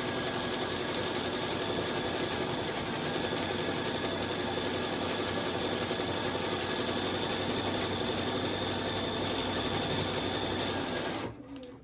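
Bernina sewing machine running steadily at low speed, stitching binding onto fabric through its binder attachment, with a motor hum under it. It stops abruptly near the end.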